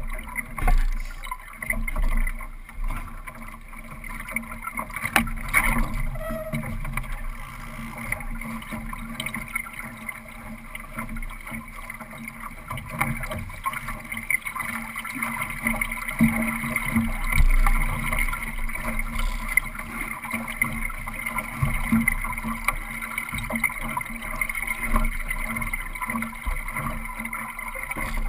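Solo sailing dinghy under way: water rushing and slapping along the hull with wind rumbling on the boat-mounted microphone. A few knocks sound in the first several seconds.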